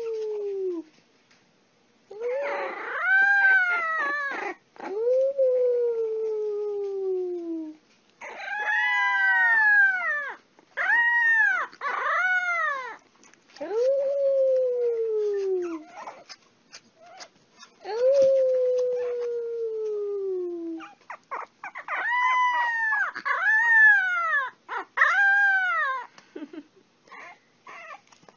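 A French bulldog puppy howling. Long calls slide slowly down in pitch, and between them come runs of short, higher, rising-and-falling cries, with brief pauses in between.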